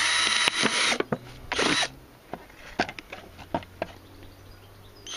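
18-volt cordless drill/driver running as it bores a hole through a thin plastic PET drink bottle; it stops about a second in and gives one more short burst. After that come a few light clicks.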